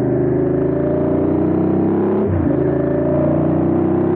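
Ducati L-twin motorcycle engine accelerating hard, its pitch climbing, dropping sharply at an upshift about two seconds in, then climbing again.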